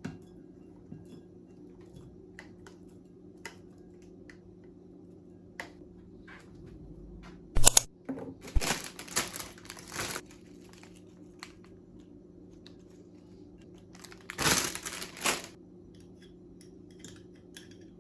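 Scattered small clicks, then a sharp knock about eight seconds in followed by bursts of crinkling and rustling, and another burst of crinkling near the end, over a low steady hum.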